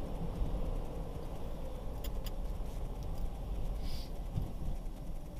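Car driving along, a steady low rumble of road and engine noise, with two light clicks about two seconds in.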